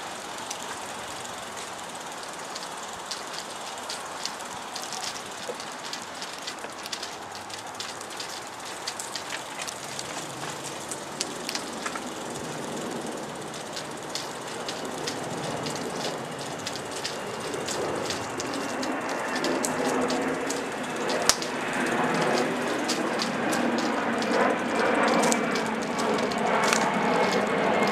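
Wheels rolling over concrete and then asphalt: a steady crackly rumble with many small clicks and ticks. It grows louder from about halfway through as the ride picks up speed onto the street.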